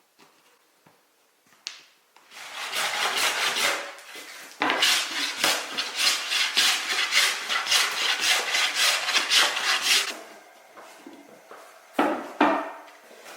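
Wood being abraded by hand in quick back-and-forth strokes, about three a second, after a shorter rubbing pass. Two light wooden knocks follow near the end.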